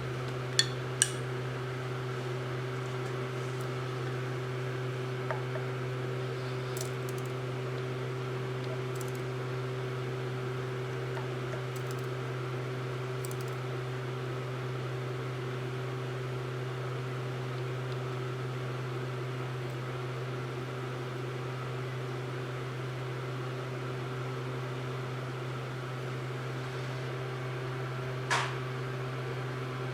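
An electric motor running with a steady, unchanging hum. A couple of light metallic clicks come about a second in, and a short knock comes near the end.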